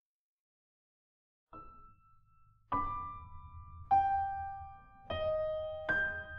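Silence, then about a second and a half in, soft keyboard music begins: single sustained notes and chords struck roughly once a second, each ringing out and fading.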